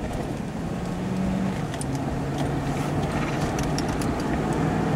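Steady road and engine noise heard inside a moving chase vehicle, with a low hum that slowly grows louder and a few faint ticks.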